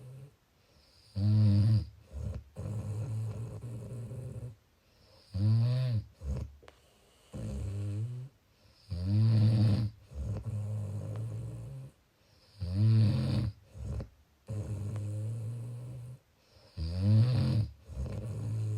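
Steady snoring, about five breaths roughly four seconds apart. Each breath is a loud snore followed by a quieter, steadier hum, then a short pause.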